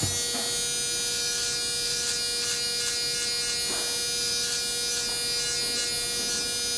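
Electric foil shaver buzzing steadily, its head pressed to the side of a close-cropped scalp, shaving the hair at the temple.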